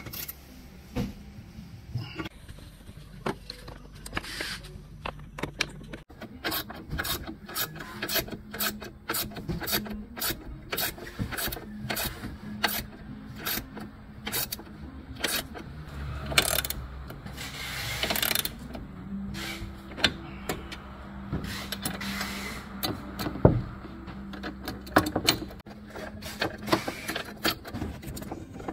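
Ratcheting combination wrench clicking in quick, irregular runs as it tightens bolts on a rowing machine's steel frame, with a few short scrapes of metal being handled.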